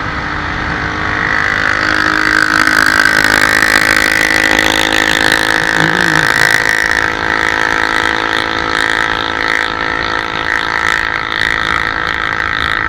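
Motorcycle engine running steadily while riding on the road, with road and wind noise, growing a little louder about two seconds in.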